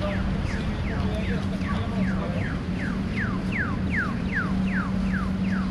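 Accessible pedestrian crossing signal chirping: a rapid, even train of short falling electronic chirps, about four a second, sounding for the walk phase over steady street traffic noise.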